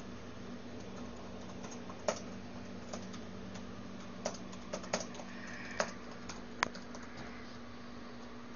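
Slow, irregular typing on a computer keyboard: single key clicks with pauses between them, a few louder than the rest, over a steady low hum.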